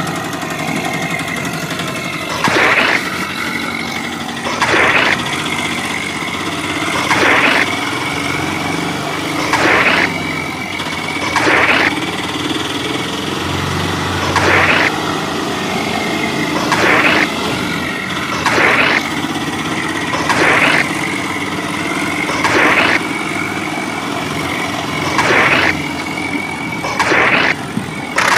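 Tractor engine sound, running steadily and surging louder every two to three seconds.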